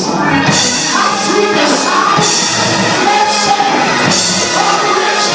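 Church band music with drums, cymbal strokes about once a second, and a voice singing over it.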